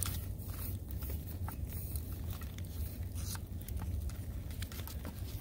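Butter in its paper wrapper rubbed and smeared around the inside of a metal loaf pan to grease it: soft crinkling and scraping with scattered small clicks, over a low steady rumble.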